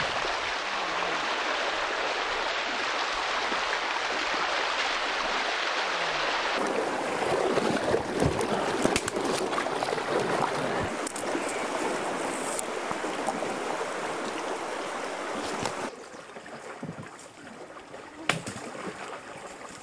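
Flowing water of a shallow river as a canoe is dragged upstream through it, with scattered sharp knocks from about a third of the way in. The water sound drops noticeably about three-quarters of the way through, and one louder knock comes near the end.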